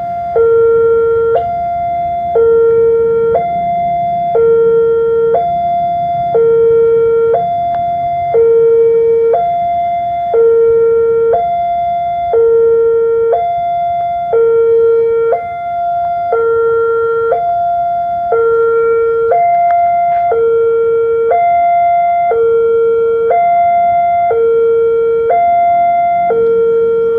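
Railway level-crossing warning alarm sounding a loud two-tone electronic signal, alternating high and low, each tone held about a second. It warns that a train is approaching and the crossing barrier is down.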